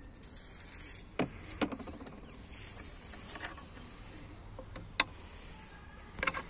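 Plastic reservoir cap being handled and pressed onto its plastic filler neck: a few sharp plastic clicks, the sharpest about five seconds in, between short bursts of rustling.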